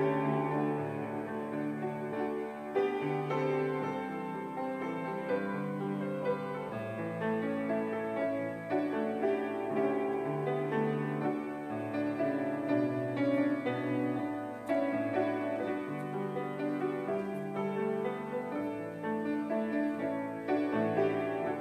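Piano playing a slow instrumental piece of held chords and notes, without singing.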